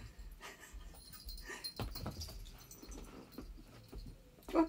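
House cats playing on carpet: faint scuffles and light knocks, then a short cat chirp near the end.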